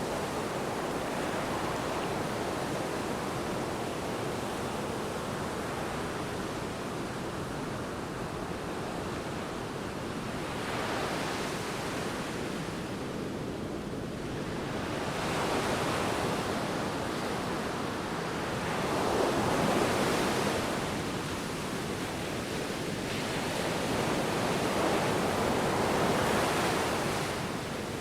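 Sea waves washing in, a steady rush of surf with several louder swells as waves break, about every four seconds in the second half.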